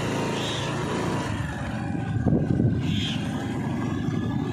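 Two-wheeler engine running while riding, with wind buffeting the phone's microphone; the wind rumble grows heavier from about two seconds in and covers the engine.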